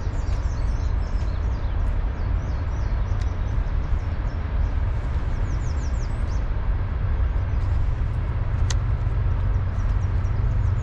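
Outdoor background: a steady low rumble with faint rows of high chirps, and one sharp click near the end.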